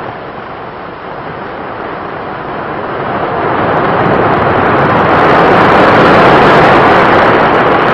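Heavy surf breaking: a loud rush of noise that swells from about two seconds in and stays at its loudest through the second half.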